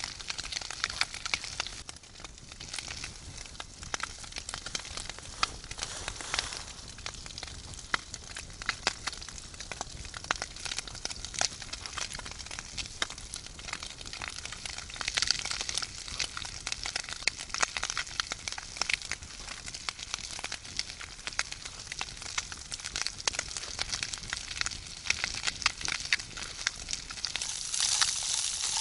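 Campfire crackling with brisket sizzling in a frying pan: a steady run of small pops and hiss, growing louder near the end.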